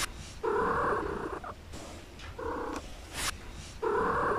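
A cat purring close up, in an even breathing rhythm: a short phase then a longer one, repeating about every second and a half.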